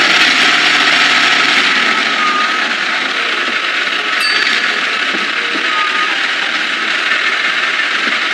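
Steady, hiss-like machine noise from construction vehicles working, as a cartoon sound effect, with no marked starts or stops.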